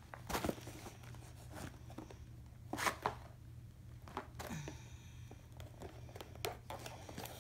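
Long cardboard diamond-painting kit box being handled and opened by hand: scattered light rustles, scrapes and taps of cardboard and packaging.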